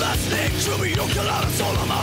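Loud heavy metal music: distorted guitars, bass and drums with steady, regular kick-drum hits.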